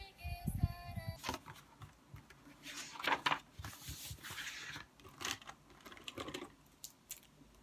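Paper rustling and rubbing as hands smooth and press flat the pages of an open paper planner, in several short strokes, with a few light taps near the end. Background music stops about a second in.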